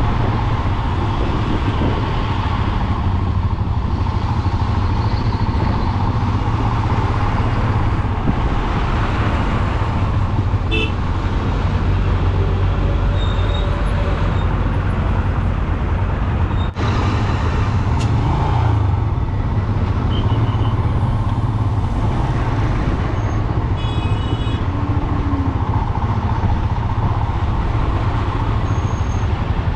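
Royal Enfield Himalayan's single-cylinder engine running at low speed while filtering through slow truck traffic, with steady traffic noise around it. A couple of brief high beeps cut through, about ten seconds in and again about two thirds of the way through.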